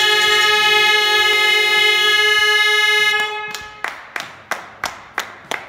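A loud horn-like blast of several steady held tones that cuts off about three seconds in, followed by rhythmic hand clapping at about three claps a second.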